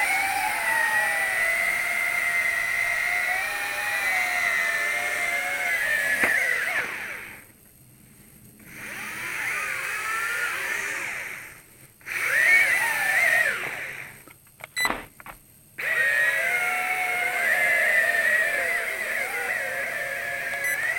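Twin small electric motors and propellers of a WLtoys Q202 RC amphibian plane whining, their pitch wandering up and down with the throttle. The whine cuts out for about a second three times.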